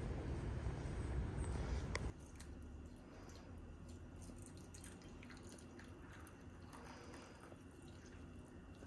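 A low wind rumble on the microphone for about two seconds, cutting off suddenly. Then a faint trickle of water poured in a thin stream from a stovetop kettle into a ceramic mug with a tea bag.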